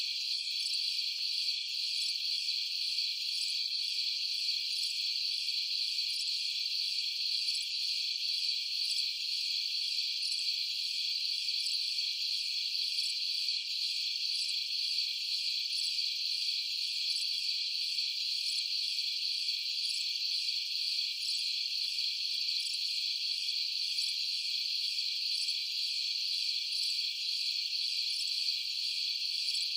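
A dense, steady chorus of crickets and other night insects chirping, high-pitched, with nothing low beneath it.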